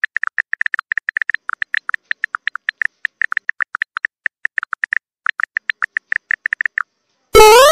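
Edited-in comic sound effects: a rapid run of short, high blips, about ten a second, with a brief pause about five seconds in. The blips stop near the end, and then comes one loud rising whoop.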